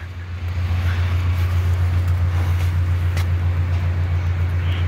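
Steady low engine hum, swelling over the first half second and then holding level.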